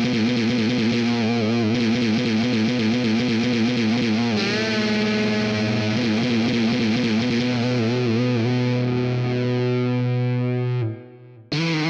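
Heavily distorted electric guitar holding long notes with a wavering, wobbling pitch. The notes shift about four seconds in, cut off briefly near the end, then start again.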